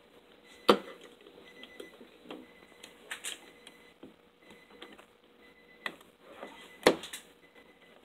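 Sharp plastic clicks and taps from a small hand tool working on a car's interior door trim panel, with two loud snaps, one about a second in and one near the end, and lighter taps between.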